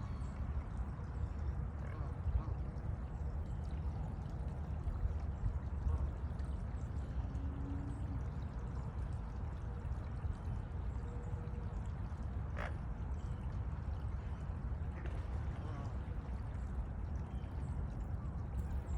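Steady rush of running or pouring water, even throughout, with one brief click about two-thirds of the way through.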